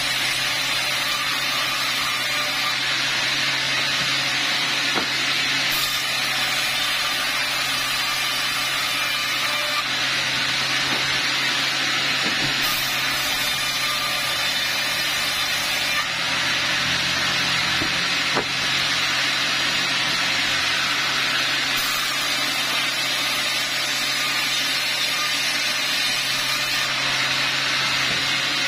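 Log band saw running steadily: a constant low hum under an even whirring noise as its blade cuts lengthwise through teak logs pushed along the table.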